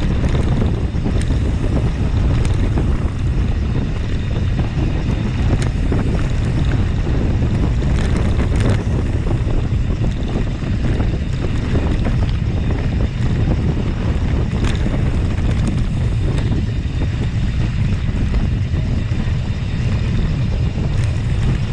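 Wind buffeting the camera microphone on a mountain bike riding a downhill, a steady loud low rumble, with scattered clicks and rattles from the bike on rough ground.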